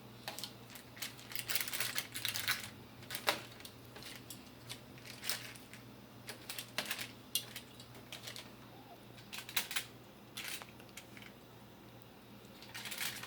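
Intermittent light clicks and clinks of a metal utensil against a baking pan as baked chicken wings are turned over, over a low steady hum.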